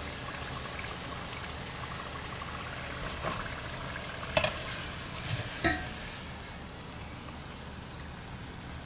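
Hot frying oil sizzling steadily in a steel pot, with two sharp metallic clicks about halfway through from a wire skimmer against the pot or plate.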